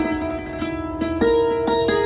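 Background music of quick plucked string notes over a held tone.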